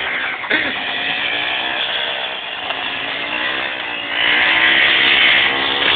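MZ quad bike's engine running steadily, its pitch wavering slightly with the throttle; about four seconds in it gets louder and brighter.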